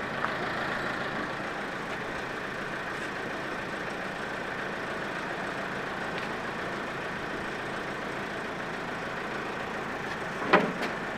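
Caterpillar 416 backhoe's diesel engine running steadily while it pulls on the wrench. Near the end comes one brief sharp noise.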